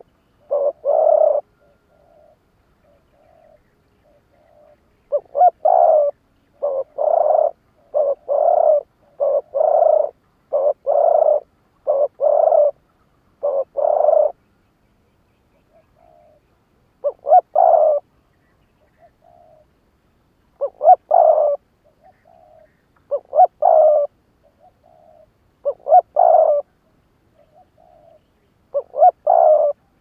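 Spotted dove cooing as a caged decoy to lure wild doves. A fast run of loud coos from about five seconds in to fourteen is followed by a pause, then single loud coos every two to three seconds, with faint short coos in the gaps.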